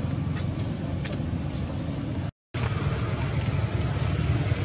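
Steady low rumbling background noise with a few faint high ticks, broken by a brief dropout to silence just past halfway through.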